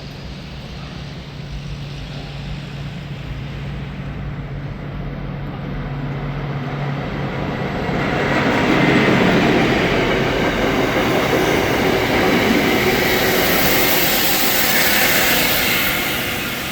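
Speno rail grinding train coming by on the track: a steady low engine hum at first, then growing much louder about halfway through, with a loud high hiss near its loudest before easing off near the end.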